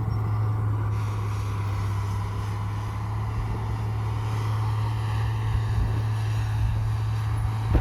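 Heavy diesel engine of earthmoving machinery running steadily with a deep, even hum. A sharp knock comes right at the end.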